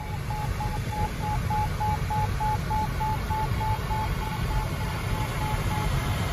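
A glider's audio variometer beeping at one steady high pitch, about three beeps a second, over a low rush of air past the cockpit; the repeated beeping signals that the glider is climbing in wave lift. The beeps grow fainter near the end.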